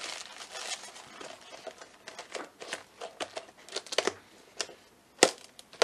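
Plastic zip-lock bags of dried spaghetti squash crinkling as they are handled and packed into a plastic storage container, with scattered sharp clicks and taps, the sharpest about five seconds in.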